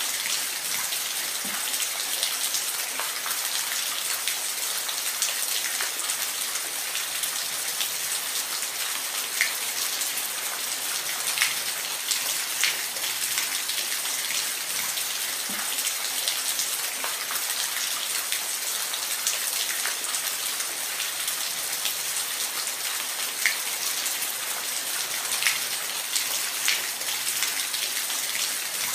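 Steady rain, a constant hiss with scattered individual drops tapping.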